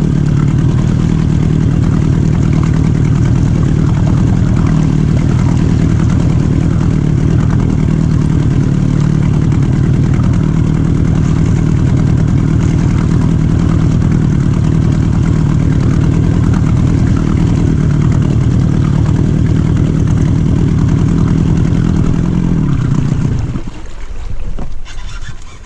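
Boat's outboard motor running steadily at trolling speed. The motor sound drops away near the end.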